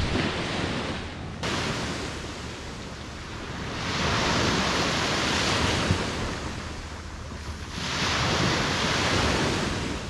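Sea waves washing onto a sandy beach, the surf swelling and fading in surges every few seconds, with some wind on the microphone.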